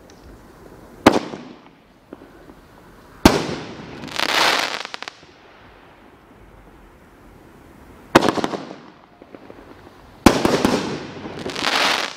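World Class Fireworks 'Loud & Proud' consumer firework cake firing. Four sharp bangs come in two pairs with a lull of a few seconds between them. The second bang of each pair is followed by a dense swell of crackling lasting a second or two.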